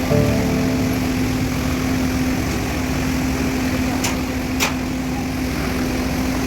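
Concrete boom pump's engine running with a steady drone, with two sharp clicks about four seconds in.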